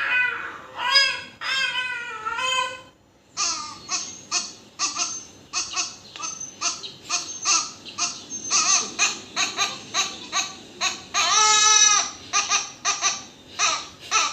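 High-pitched voice-like calls: a few longer wavering ones, then a rapid string of short whiny cries, about two to three a second, with one longer call a little past the middle.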